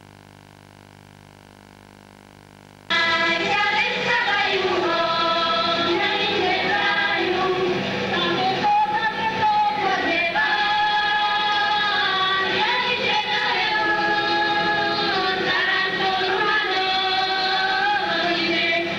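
Slovak folk song sung by a group of voices, cutting in suddenly about three seconds in after a faint steady hum.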